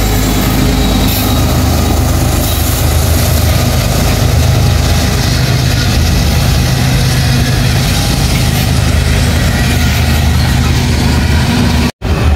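CSX freight train passing close by: a diesel locomotive's engine running steadily under the rumble of freight cars rolling past. The sound drops out for a moment near the end.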